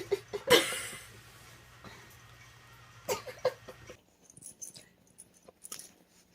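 Short, sudden noises from a pet animal, loudest in the first second and again about three seconds in; a background hum stops abruptly about four seconds in.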